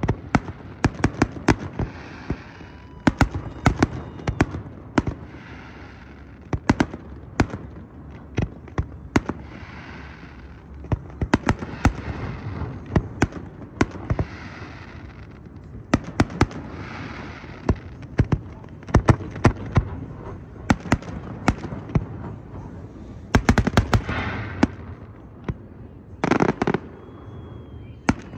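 Aerial fireworks display: shells bursting overhead as many sharp bangs, coming irregularly and often in quick volleys, with hissing between the bursts.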